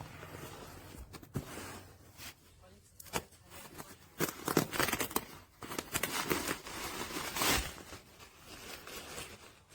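A fabric camera shoulder bag being handled: irregular rustling, clicks and short ripping sounds, busiest through the middle of the stretch.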